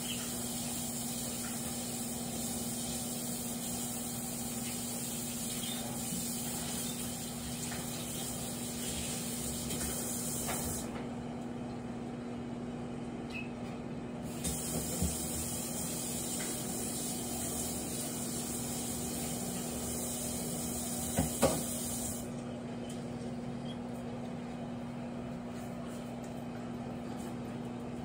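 Microwave oven running, a steady hum and hiss with a higher hiss that drops out twice for a few seconds. There are a few short clicks around the middle and again later on.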